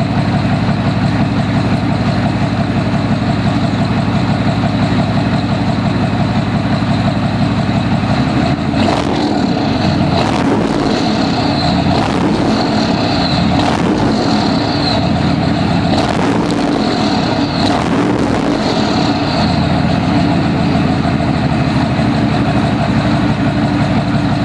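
Truck engine idling, then revved about six times in quick succession, each rev bringing a high turbo whistle that rises and fades as the revs drop, before settling back to a steady idle.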